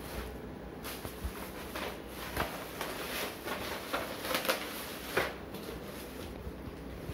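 Clear plastic wrapping crinkling and rustling as it is pulled off a wooden carrom board and bunched up, with irregular crackles throughout.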